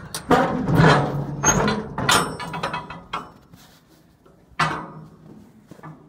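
Steel shipping-container door being opened: a dense run of metal clanks and rattles from the locking bars and the heavy door for about two seconds, fading off, then one sharp clank about four and a half seconds in.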